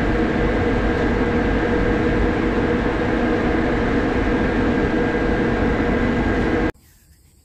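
Crane engine running steadily while it holds a load on the hook: a loud, even rumble with a few steady tones over it, which cuts off suddenly near the end.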